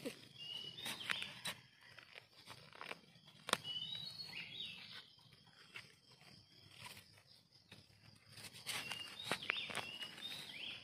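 A bird calling three times in short chirping phrases, each a chirp followed by a quick rising note. Under it come scattered sharp clicks and scrapes of a blade digging soil around a termite mushroom as the mushroom is pulled up, with one louder knock about three and a half seconds in.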